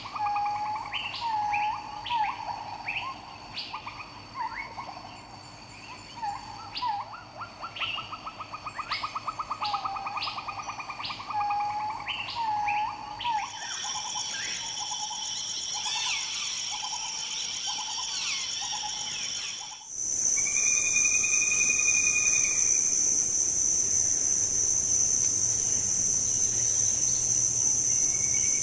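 Forest birds calling: many short chirps and rapid trills from several birds. About halfway the recording changes and a steady high-pitched insect drone joins in. It grows louder and takes over in the last third, with only a few bird notes.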